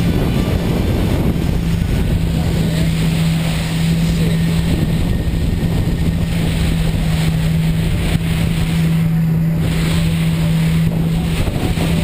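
Steady drone of the jet ski engine that drives a flyboard, held at constant revs, under the rush of water jets and wind buffeting the microphone.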